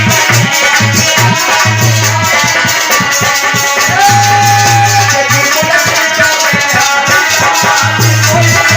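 Upbeat instrumental music with fast shaker-like rattling percussion over a pulsing bass beat, without singing; one melody note is held for about a second around the middle.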